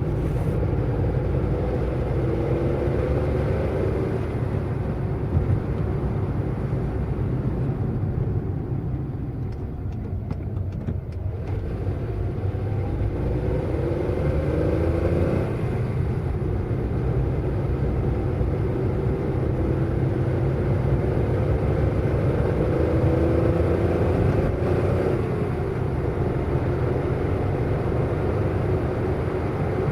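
Car driving fast: the engine note rises several times under acceleration and falls back abruptly, with a steady low road and engine rumble underneath.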